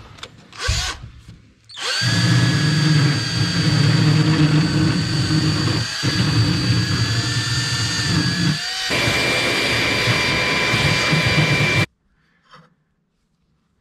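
Cordless drill running a small bit around the edge of a freshly hole-sawn hole in the steel truck bed, deburring the thin lip the cut left on the bottom. It runs steadily with a whine for about ten seconds, dips briefly twice, and stops abruptly near the end.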